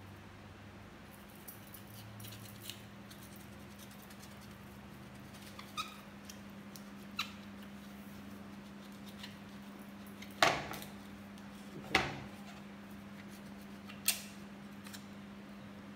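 Small knife prying dried coconut meat away from the hard shell: scattered clicks and cracks, the three loudest about ten, twelve and fourteen seconds in, over a steady low hum.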